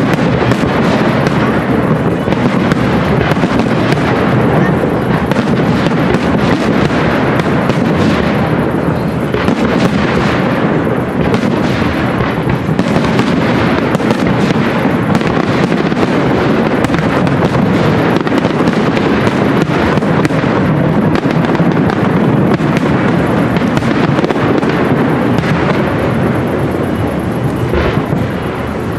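Fireworks display: a dense, continuous barrage of many rapid pops and bangs, easing slightly near the end.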